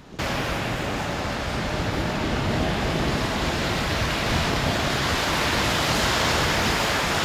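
A loud, steady hiss of noise that starts abruptly just after the beginning and runs on evenly.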